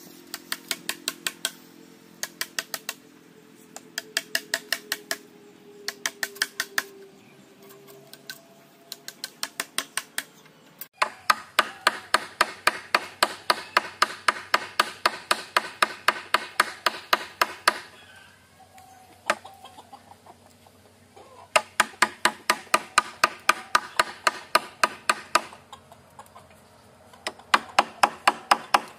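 Hammer driving nails into a wooden cage frame, in quick runs of blows at about four a second with short pauses between runs, and one long unbroken run in the middle.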